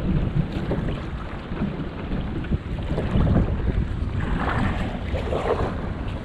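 Wind buffeting the microphone with a steady low rumble, over water lapping around a kayak. In the second half come the splashes of paddle strokes in the water.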